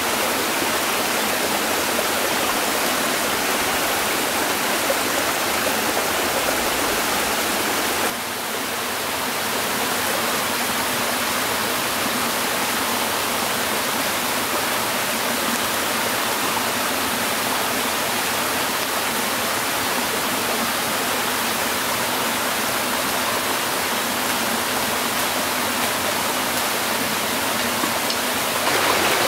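Steady rush of flowing water, like a stream or small waterfall, with a short, slight drop in level about eight seconds in.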